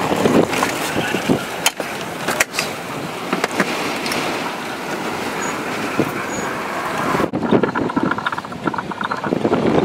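Road and wind noise inside a moving vehicle, with a few sharp knocks about two seconds in. About seven seconds in the sound changes abruptly to a duller cabin rumble without the hiss.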